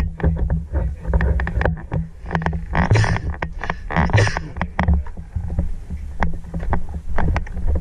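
Close handling noise from gear on a player's body-worn camera, heard as irregular clicks and knocks over a steady low rumble, with two short noisy rushes about three and four seconds in.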